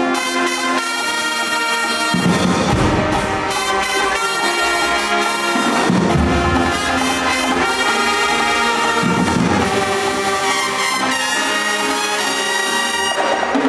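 High school marching band brass section playing a loud, sustained chordal passage, with deeper low-brass notes swelling in several times.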